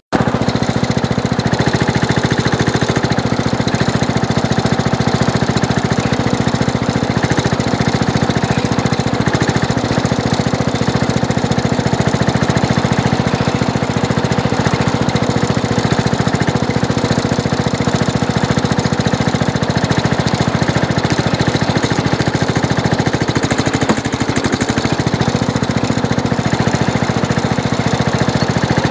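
Craftsman garden tractor's engine running steadily right under the microphone, with a fast, even pulse, as it drives the front-end loader.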